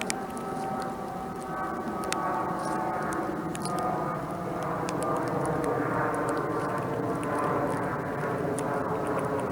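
An airplane flying over, its engine drone slowly growing louder, with scattered light ticks on top.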